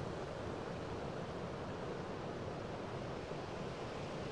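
Steady rain falling, a constant even wash of noise with no single drops standing out.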